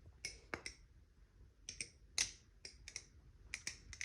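Barfly Barracuda V2 balisong (butterfly knife) being flipped through a choker fan, its handles clicking against the blade's tang pins: about a dozen sharp, irregular clicks.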